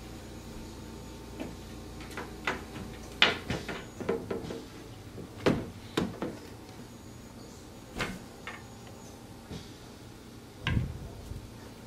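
Irregular wooden knocks and clicks of painted pinewood crib parts being fitted together by hand, the front rail being pushed onto wooden dowels against the crib end. The sharpest knock comes about three seconds in, and a heavier thud near the end.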